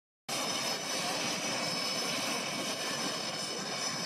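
Boeing-Saab T-7A Red Hawk's General Electric F404 afterburning turbofan running steadily on the ground: a thin high whine over a broad, even rush. It cuts in a moment after the start.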